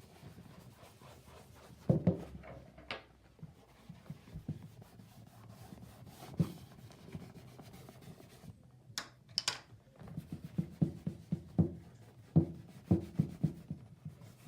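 Cloth rubbing on a leather riding boot as dye cream is massaged in, with scattered knocks from the boot being handled, the loudest about 2 s in and a cluster later on.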